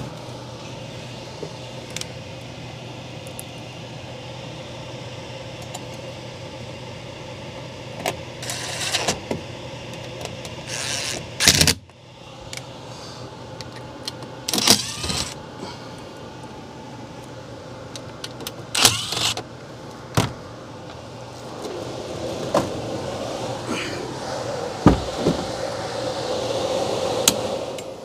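Steady hum of a running central air handler. Over it come several short whirs of a cordless drill-driver backing out screws, and metal clatter as the sheet-metal access panel is handled and removed.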